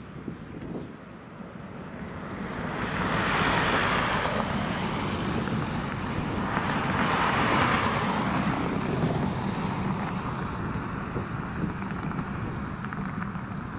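Twin-engine wide-body jet airliner landing: the engine roar swells as it comes in low over the runway, swells again about seven seconds in just after the main wheels touch down, then slowly fades.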